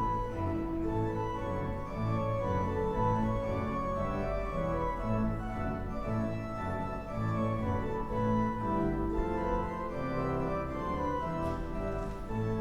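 Church organ music: sustained chords held over a bass line that changes every second or so.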